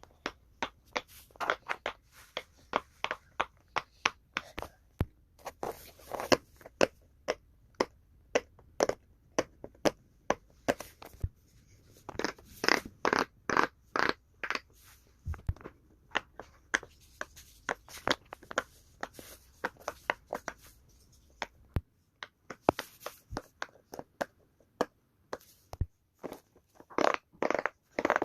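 Silicone pop-it fidget toy bubbles being pressed one after another, a long run of short soft pops at a few per second with uneven spacing.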